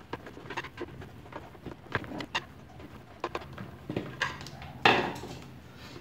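Screwdriver turning screws into the plastic motor cover of a blender base: scattered small clicks and scrapes of the tool and screws. A louder knock and scrape about five seconds in as the plastic base is handled.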